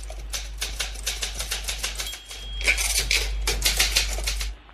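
Opening-titles sound effect: a fast run of sharp mechanical clicks, about seven a second, over a low steady hum. The clicks break off briefly about two seconds in, resume more densely, and cut off suddenly near the end.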